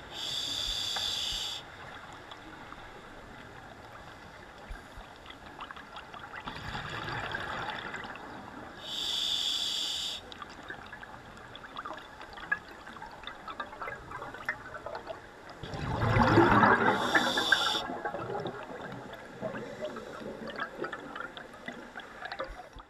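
Scuba breathing heard underwater through a demand regulator: three high hissing inhalations, each a second or so long, alternating with gurgling bursts of exhaled bubbles. The loudest bubble burst comes about sixteen seconds in.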